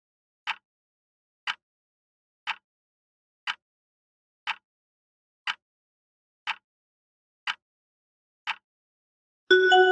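Quiz countdown-timer sound effect ticking once a second, nine ticks, then a bright bell-like chime about nine and a half seconds in that rings on and fades, marking time up.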